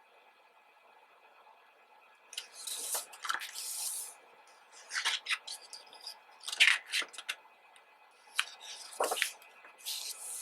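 Pages of a photo book being turned by hand: several short bursts of paper swishing and rustling, with a few sharper paper snaps, starting about two seconds in.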